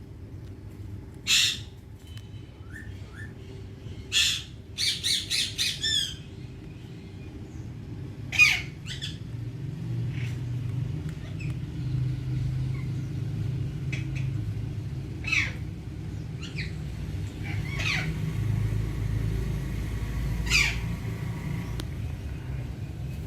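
Indian ringneck parakeet giving short, sharp squawks: single calls spaced several seconds apart, with a quick run of about five calls about five seconds in. A low steady rumble sits underneath from about ten seconds in.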